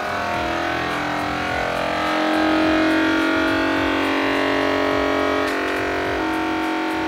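Vacuum sealer's pump running with a steady whine as it draws the air out of the bag, its pitch sliding during the first couple of seconds as the vacuum builds. It grows a little louder about two seconds in and steps down slightly about five and a half seconds in.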